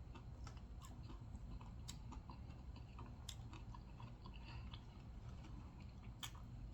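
Faint close-up chewing of nachos topped with Doritos: scattered small crisp clicks and crunches from the chips, a few sharper ones spaced irregularly.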